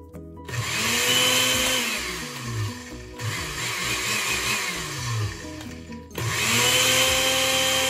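Oster blender grinding dry bread into breadcrumbs, run in pulses: the motor whines up to speed about half a second in, dips briefly near three seconds, then stops and starts again with another rise just after six seconds.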